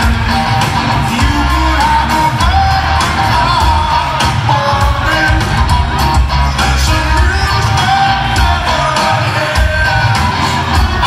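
Live rock band playing in an arena: a male voice sings over drums, bass and guitar, with the echo of a large hall.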